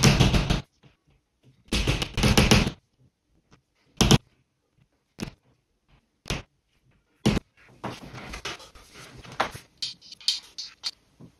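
Work noise from fitting hollow-wall anchors into a plasterboard ceiling. There are two loud bursts of about a second each, then single knocks roughly a second apart, and near the end steady scraping with scattered clicks.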